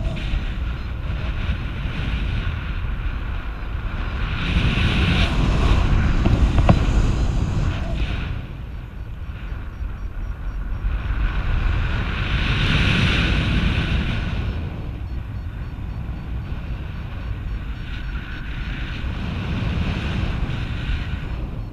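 Airflow buffeting the camera microphone of a paraglider in flight at about 30 km/h: a steady rushing noise that swells louder twice, about a quarter of the way in and again just past the middle.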